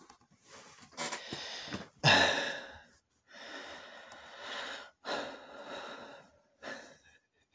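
A man breathing audibly in a pause between sentences: about five breaths in and out, the loudest one, like a sigh, about two seconds in.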